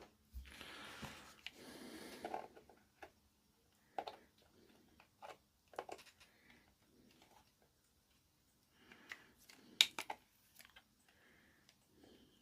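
Faint clicks and taps of small tools and parts being handled on a workbench, with soft rustling in the first couple of seconds and a sharper cluster of clicks about ten seconds in.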